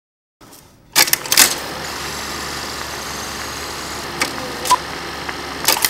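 Steady hiss with scattered sharp clicks and pops, starting suddenly about a second in, like the surface noise of an old film soundtrack or a film projector running.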